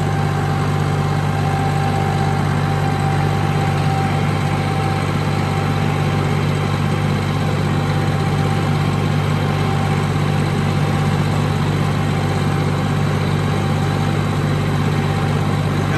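John Deere 5065E tractor's three-cylinder diesel engine running steadily while the tractor is driven, heard from the operator's seat, with a thin steady whine over the low engine note.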